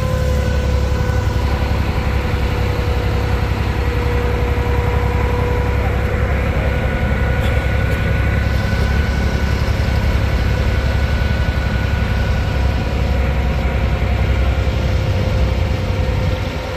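Steady rumble of a vehicle in motion, heard from a seat on board, with a steady whine over it that fades near the end.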